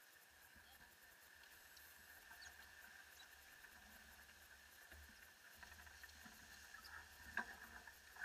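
Near silence: a faint steady hiss with a thin steady tone, and one light click a little over seven seconds in.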